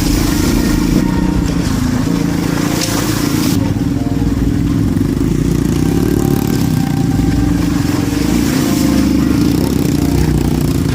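Dirt bike engine running steadily while being ridden.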